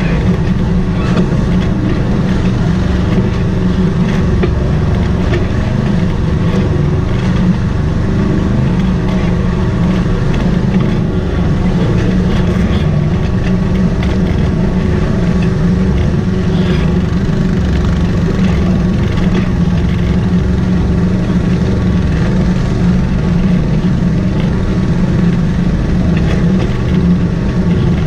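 Side-by-side UTV engine running steadily at low speed while the vehicle crawls over rocks, with small knocks and rattles from the vehicle.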